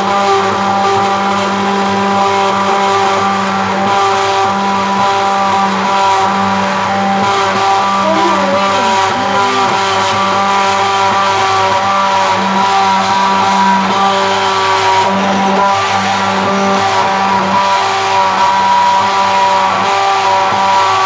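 Hand-held immersion blender running steadily in a pot of vegetable soup, puréeing it into a cream: a continuous, loud electric motor whine.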